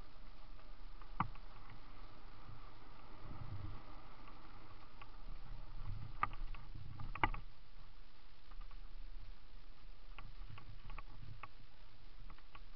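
Mountain bike rolling down a dirt forest trail: a steady rumble of tyres over soil and leaves with wind on the mic, broken by sharp clacks and rattles from the bike's chain and frame over bumps, most of them about six to seven seconds in and again near the end.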